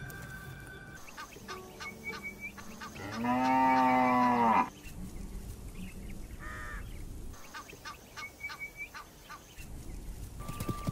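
Donkey giving one long, loud bray about three seconds in, lasting about a second and a half, with a shorter, weaker call a few seconds later. Faint short chirps repeat before and after.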